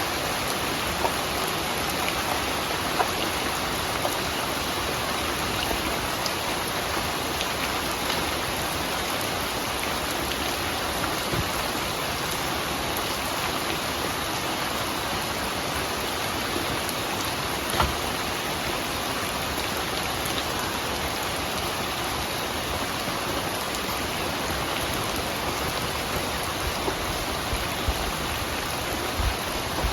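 Steady rain falling, an even hiss with now and then a sharper single drop hit.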